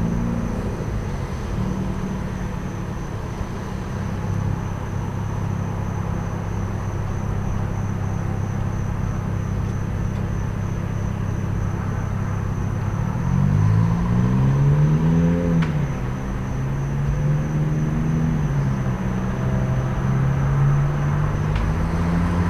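Truck engines idling with a steady low drone. About thirteen seconds in, a vehicle pulls away, its engine pitch rising in steps through the gears before settling. Crickets chirp steadily high above it all.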